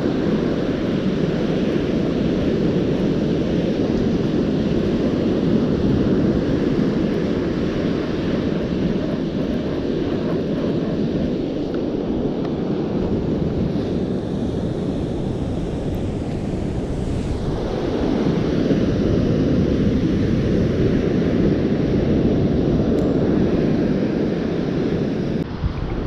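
Steady wind rumble on the microphone mixed with ocean surf breaking on the beach, easing a little about two-thirds of the way through.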